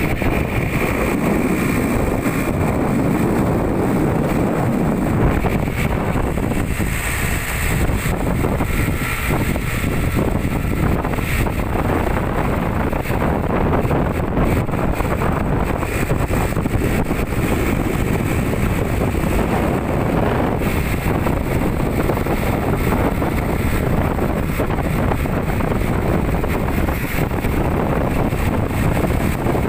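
Wind buffeting the microphone over the steady rumble of a moving truck, heard from its open cargo bed.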